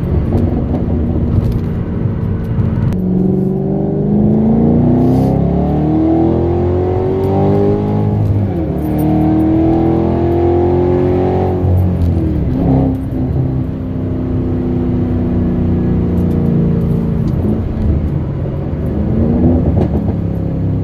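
Supercharged 5.8-litre V8 of a 2014 Shelby GT500 accelerating, heard from inside the cabin. The engine note climbs in pitch and drops back at each manual upshift, three times.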